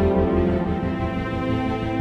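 Orchestral music holding a slow, sustained chord, with a low pulsing note underneath that fades about half a second in.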